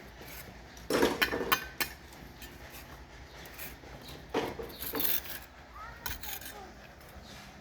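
Hard objects knocking and clinking together: a quick cluster of sharp knocks about a second in, and another about four to five seconds in.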